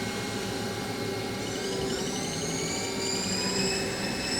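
Haas ST-15 CNC lathe spindle running with a steady machine hum. About a second and a half in, a high whine rises in pitch and then holds steady as the spindle speeds up from 500 toward 1,000 rpm.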